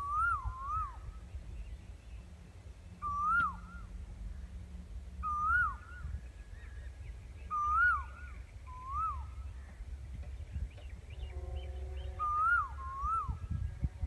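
Asian koel calling repeatedly, each call a whistled note that rises and then drops, sometimes given twice in quick succession, every two to three seconds, over a low background rumble.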